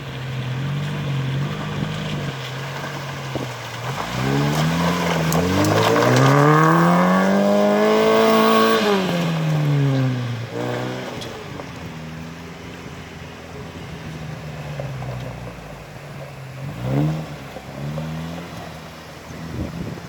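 Opel Frontera's engine working off-road: the revs climb over about four seconds to a held peak and fall back, then it runs lower and steadier, with two short bursts of revs near the end.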